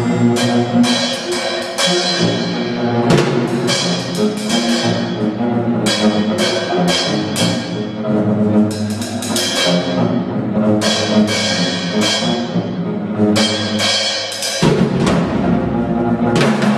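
Free-improvised jazz trio: a drum kit with rapid, irregular cymbal and drum strikes over sustained bowed notes from an electric bass violin, with a tenor saxophone heard near the end.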